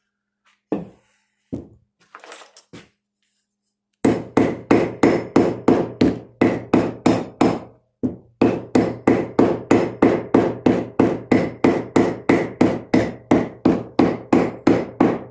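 Hammer blows in a quick, steady rhythm, about three a second, with a ringing tone under each strike, working at a cracked walnut axe wedge. A few light knocks come first, and there is a brief pause about halfway through the run.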